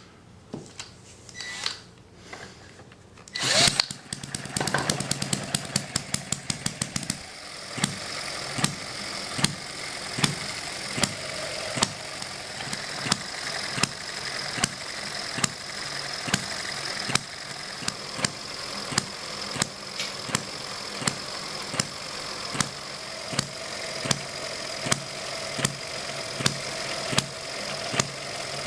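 M91 vertical hit-and-miss model engine, a small four-stroke spark-ignition engine, starts about four seconds in with a quick run of rapid firing pops, then settles into hit-and-miss running. It fires about one and a half times a second with a steady whir and clatter of the flywheels and valve gear between firings. Its governor, fitted with half-strength springs, holds the exhaust valve open so that it coasts between firings.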